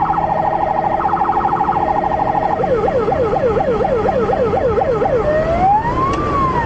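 Police car siren cycling through its tones: a fast warble, then about two and a half seconds in a yelp of falling sweeps at about four a second, and a little past five seconds a slow rising and falling wail.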